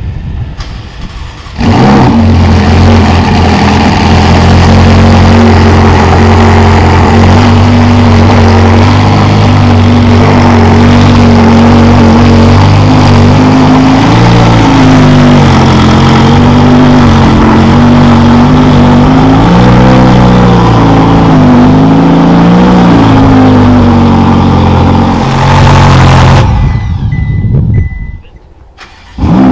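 Novitec-tuned Ferrari 488's twin-turbo V8 with a Novitec exhaust, running loud at a steady idle from about two seconds in, the pitch wavering a little now and then. The sound drops away briefly near the end and comes back loud.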